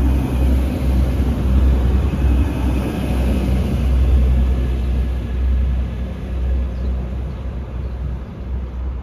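Two coupled Class 185 diesel multiple units pulling away on departure: a steady low diesel engine drone and rumble that slowly fades over the last few seconds as the train moves off.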